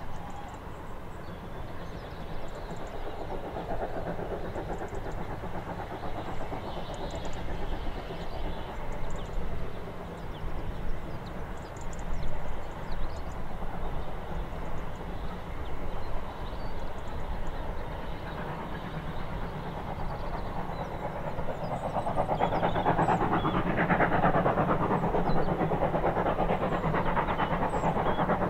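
GWR 5700-class pannier tank steam locomotive No.7714 at work with its train, a steady rumble that grows clearly louder about three-quarters of the way in.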